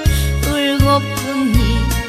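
Instrumental passage of a trot song's accompaniment: a steady bass and drum beat under a lead melody that wavers with vibrato.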